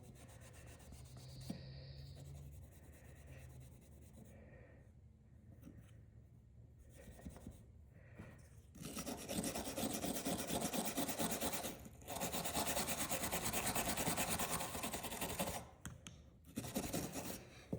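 Fine 000 steel wool rubbed in quick back-and-forth strokes over a pocket-knife blade to polish out discoloration. Quiet at first, then two spells of steady scratchy rubbing about halfway through, with a short pause between them.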